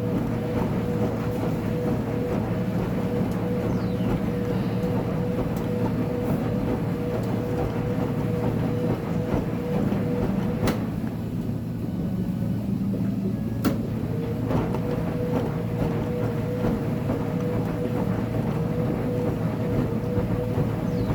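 Uni-Mac UniMat 35 commercial front-load washer running a load of blankets: a steady mechanical rumble with a constant whine. The whine stops for about three seconds around the middle, with a sharp click at its stop and another as it comes back.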